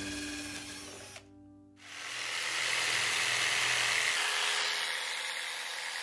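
Hand-held power drill boring an entrance hole through a wooden board, starting about two seconds in and running steadily.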